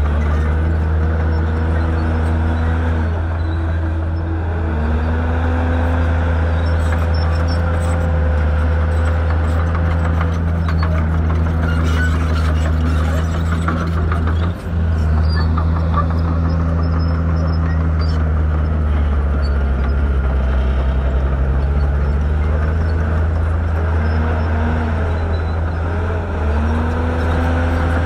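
Diesel engine of heavy earthmoving equipment running, its pitch rising and falling again and again as it revs up and eases off, with a momentary break about halfway through.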